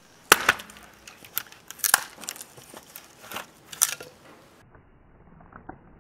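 A hatchet chopping a piece of firewood into kindling on a wooden stump: a run of sharp wooden cracks and splintering over the first four seconds, then it goes quiet.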